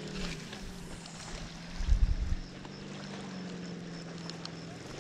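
Steady hum of a motorboat engine running out on the lake, its pitch dipping slightly just after the start. A brief, louder low rumble about two seconds in.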